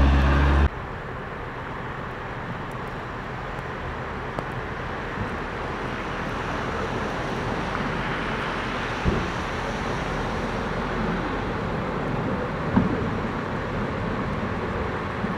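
A loud diesel engine of a van passing close breaks off abruptly within the first second. It gives way to a steady, noisy wash from a John Deere tractor running with a front snow-plough blade pushing snow. The wash swells slightly as the tractor nears, with a couple of short dull thumps.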